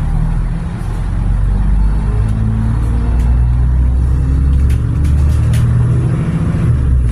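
Motor vehicle engine running with a loud, low drone whose pitch steps up and down, heard from inside the moving vehicle.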